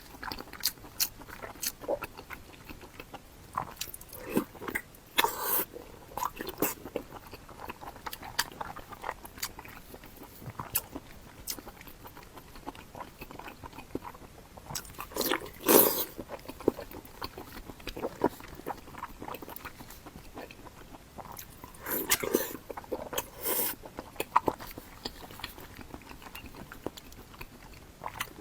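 Close-miked eating sounds: a person biting and chewing food, with many short crunchy clicks and a few louder bites, about a third of the way in, in the middle, and again about three-quarters through.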